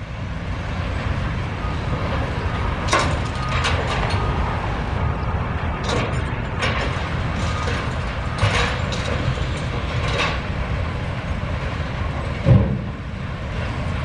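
Sawmill yard machinery running, with the steady low rumble of a Liebherr wheeled log handler's diesel engine as it carries a grapple load of logs. Scattered sharp knocks and clanks come through it, the loudest about twelve and a half seconds in.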